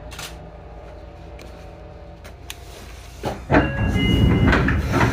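Sotetsu commuter train standing at a station with a steady low hum, then, about three and a half seconds in, a loud clatter of the passenger doors sliding shut, mixed with a few short high tones.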